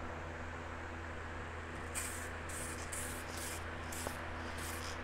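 SprayMax 2K aerosol spray can spraying in a series of short hissing bursts, about six, starting about two seconds in, as the small motorcycle fairing pieces get a coat. A steady low hum runs underneath.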